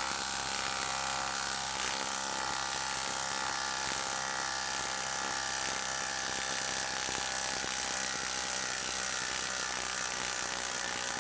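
Makita 12-volt brushless cordless impact driver running in reverse under heavy load, hammering rapidly and steadily as it backs a 6-inch lag screw out of a wood log.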